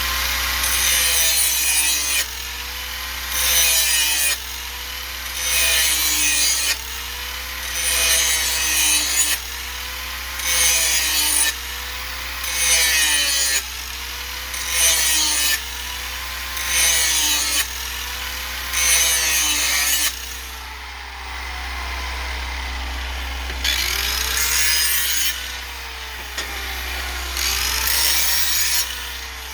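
Handheld electric grinder running continuously while its disc is drawn again and again along a steel lawnmower blade's cutting edge to sharpen it: a grinding hiss roughly every two seconds, with the motor's pitch dipping under load on each pass and rising back between them. The passes stop for a few seconds about two-thirds of the way through, then two more follow.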